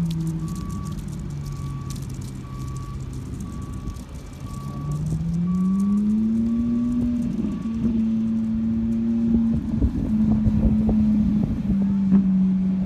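Ferrari 458 Italia's V8 engine: the note falls and holds low, then rises about five seconds in as the car accelerates, and stays high. A vehicle's reversing alarm beeps about twice a second until it stops about eight seconds in.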